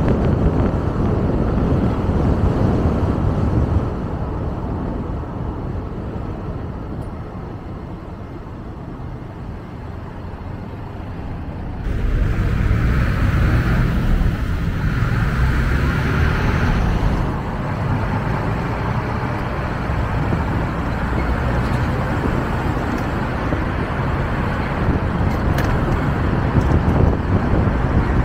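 Car driving on a road: a steady low rumble of tyres and engine with traffic noise. It drops quieter for several seconds before halfway, then comes back louder with a higher hiss for a few seconds.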